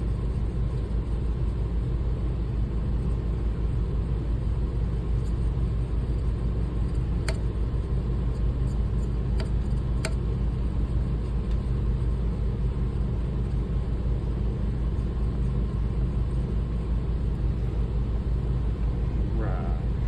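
Electric motor of a shear-sharpening machine running steadily with a low hum, with a few faint clicks partway through as a shear blade is worked on it.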